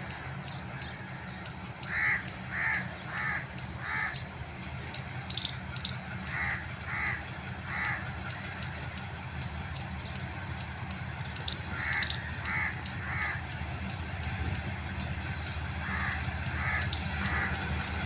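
Crows cawing in short series of three or four calls, four times over, with a fast run of high ticks throughout. Underneath is a low steady rumble that grows a little louder near the end.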